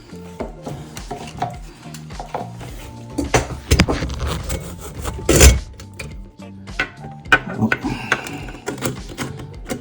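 Clattering and knocking of metal sink-drain parts being handled and fitted, with one loud clunk about five and a half seconds in. Background music plays underneath.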